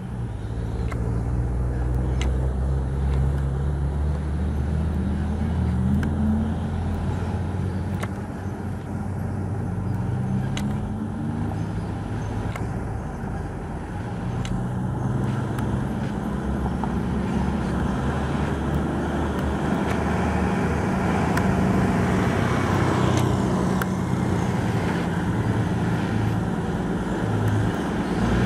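Diesel engine of a heavily loaded UD (Nissan Diesel) truck labouring up a potholed climb, its low note rising and dropping several times. A few sharp knocks are heard over it.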